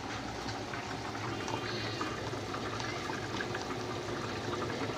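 Rajma curry bubbling at a steady boil in a steel pan on a gas stove, a continuous mass of small bubbling crackles.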